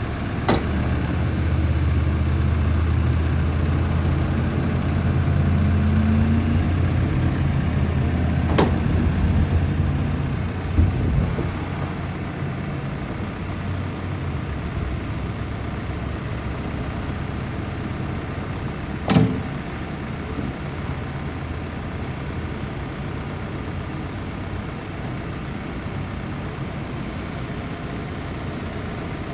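Case 590SN backhoe's diesel engine running steadily, louder for the first ten seconds or so and then settling lower. Three sharp knocks come about half a second in, around nine seconds and around nineteen seconds.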